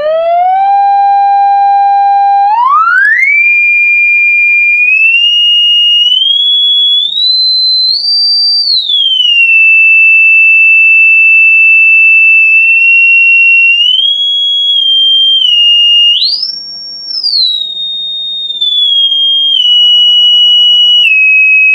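A test tone from an online tone generator plays through a 5-inch woofer. It glides up in pitch from about 440 Hz, holds, and steps through the low thousands of hertz to around 4–5 kHz, then settles back near 2.6–3 kHz. Above about 2900 Hz the tone gets quieter, which marks the top of the woofer's range.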